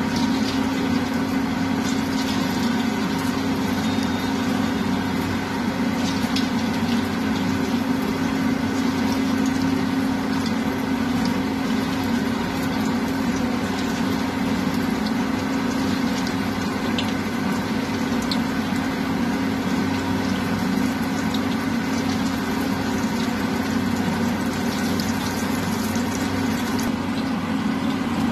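A steady machine hum with several level tones, the loudest sound, over scattered faint crackles of chicken pieces frying in hot oil in an iron wok.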